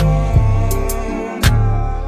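Instrumental hip-hop beat: deep bass notes and sharp drum hits under a sustained melody, without vocals.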